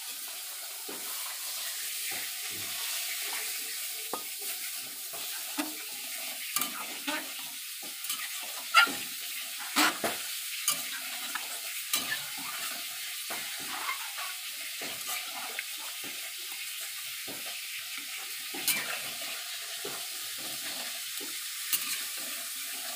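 Thin coconut-and-spice curry gravy sizzling in a metal kadai, freshly thinned with water, while a metal spatula stirs it, clicking and scraping against the pan at irregular moments.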